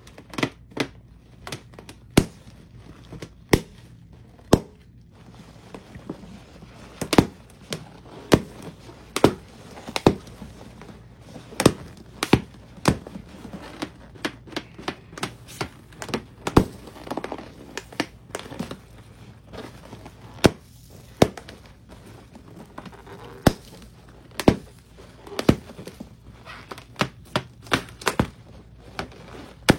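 Irregular sharp knocks and clicks, some louder than others, over a low steady background.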